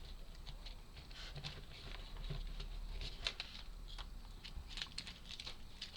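Light, irregular clicks and taps of laser-cut wooden puzzle pieces being handled and pressed into place.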